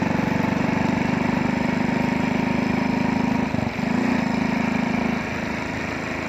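Small engine running steadily with a rapid firing pulse. It dips briefly about halfway through and drops quieter about five seconds in.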